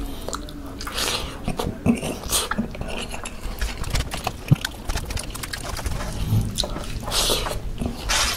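Close-up mukbang eating sounds: wet chewing and smacking of mouthfuls of rice in creamy buttermilk sauce, with fingers scooping rice off a metal tray. Irregular small clicks and smacks, with a longer, louder burst near the end.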